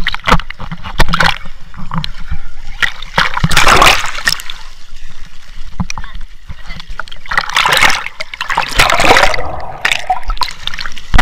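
Sea water splashing and sloshing against an action camera held at the surface among swimmers, with heavier splashes about four seconds in and again around eight to nine seconds. Near the end the camera goes under the water.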